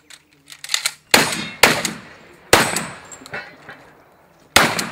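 A shotgun fired four times in quick succession, each shot sharp with a short echoing tail. The first two come about half a second apart, the third about a second later, and the last about two seconds after that.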